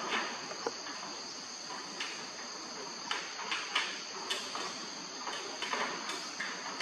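Steady high-pitched insect chorus, with scattered short rustling noises over it.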